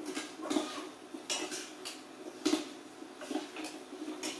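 Metal spatula clinking and scraping against a steel pan as food is stirred, in irregular strokes with the loudest clink about two and a half seconds in, over a faint steady hum.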